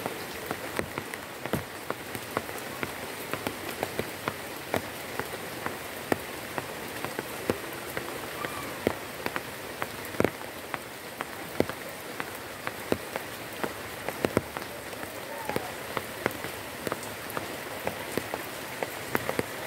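Steady rain falling on broad garden leaves, with individual heavy drops landing at irregular moments, some of them loud and close.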